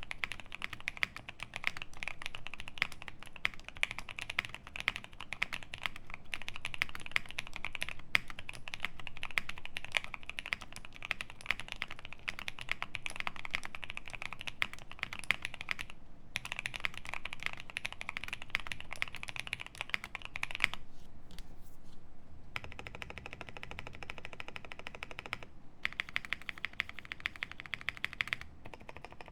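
Fast typing on a QK65 mechanical keyboard with lubed Paco switches in a POM plate and GMK keycaps: a dense run of keystrokes with a brief pause about halfway and a longer one about two-thirds through.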